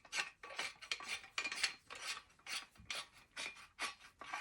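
Metal handle sections of a multi-purpose tactical shovel being screwed together, the threads rasping in quick, irregular scraping strokes, about three or four a second.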